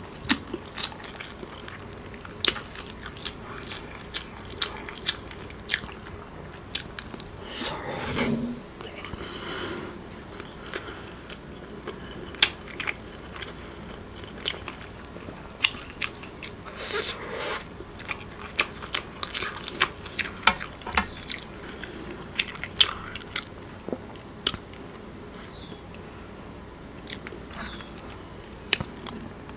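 Close-miked mouth sounds of someone eating sauce-coated fried chicken: chewing with frequent sharp, wet lip smacks and clicks, and a couple of longer, louder stretches about 8 and 17 seconds in.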